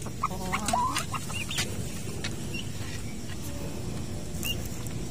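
Week-old turkey poults peeping, in scattered short chirps that are busiest in the first second, with a few sharp clicks.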